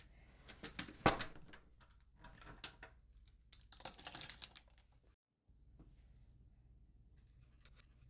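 A run of small clicks, knocks and rustles of handling. The loudest knock comes about a second in, and a dense cluster of clicks follows around four seconds in. The sound cuts out completely for a moment just after five seconds.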